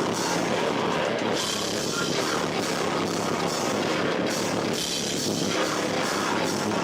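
Rock band playing live, drums and electric guitar loud and continuous, recorded through a camcorder microphone that is overloaded by the room's echo, so the sound is harsh and muddy.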